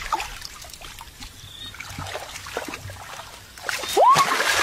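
Hands squelching and splashing in wet mud and shallow water, with small wet clicks, louder near the end as she moves. A short rising cry is heard near the end.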